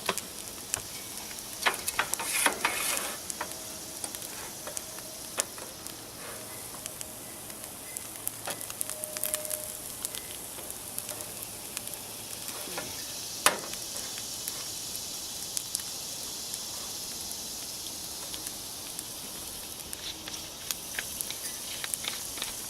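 Grits frying in hot oil in a mess-kit frying pan: a steady sizzle with scattered pops and clicks, the sizzle growing a little louder about halfway through.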